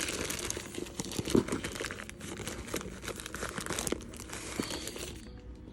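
Packing tape being peeled and torn off a cardboard shipping box, with crinkling and crackling of the tape and packaging; it stops about five seconds in.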